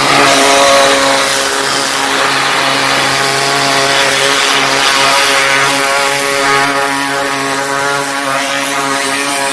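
Commercial pressure washer running steadily: its engine drones at a constant pitch under the hiss of the water spray.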